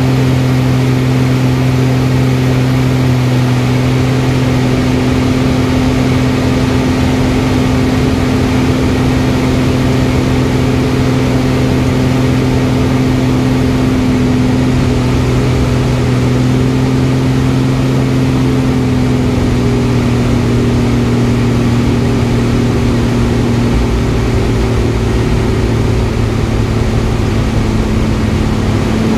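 Aerobatic plane's piston engine running steadily, heard from inside the cockpit over a dense rushing hiss. The engine note sinks a little in pitch after about the middle.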